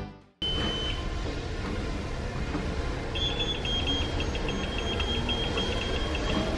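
Treadmill console beeping as its buttons are pressed: one short high beep just after the start, then from about three seconds in a long high beep broken by rapid repeated pips, over the steady hum of the running treadmill.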